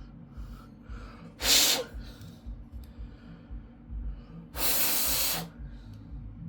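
A person blowing out air twice, close to the microphone: a short puff about a second and a half in, then a longer, steady blow of just under a second.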